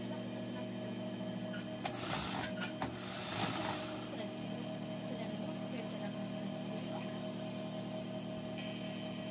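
Industrial overlock machine's motor running with a steady hum, while white cloth is handled and rustles, with a few light clicks about two to three and a half seconds in.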